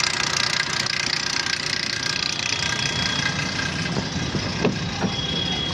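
Suzuki S-Cross engine idling with a rapid 'tr-tr' knocking rattle from the timing chain; the cause turned out to be a broken side timing chain guide.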